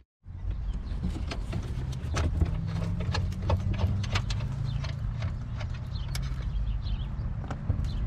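Scattered light clicks and knocks of hands and tools working on a pickup's steering column under the dashboard, over a steady low hum.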